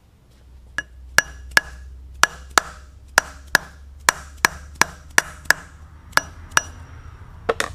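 A brass workpiece being tapped down with a hammer onto parallels in a milling machine vise to seat it: about fifteen sharp taps, often in quick pairs, each with a short metallic ring, over a low steady hum.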